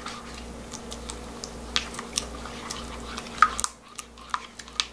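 A spatula stirring thick gochujang chili-paste marinade in a glass bowl: irregular soft clicks and wet squishing, with a sharper tap against the bowl about three and a half seconds in.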